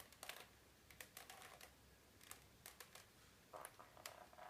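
Faint, irregular plastic clicking of a Rubik's cube's layers being turned by hand, about two clicks a second.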